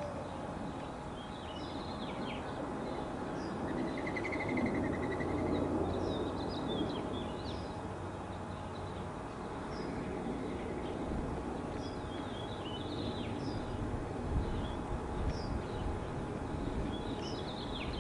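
Small birds chirping and twittering in short scattered calls, with a brief rapid trill about four seconds in, over a steady low background rumble.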